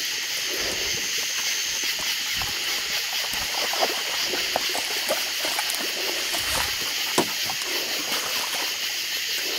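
River water sloshing and trickling as a steady hiss, with scattered light knocks.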